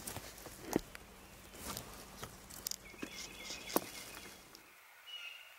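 Footsteps crunching through leaf litter on a forest trail, an uneven run of steps and knocks. A songbird calls briefly about three seconds in, and the steps fall away near the end.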